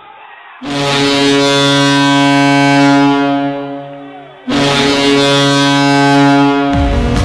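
Hockey goal horn sounding two long blasts, the second one shorter, signalling a goal.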